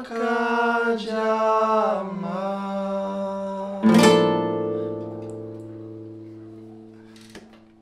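Acoustic guitar and a man's singing voice ending a song: a held sung note over the guitar, then a final strummed chord about four seconds in that rings out and slowly fades away.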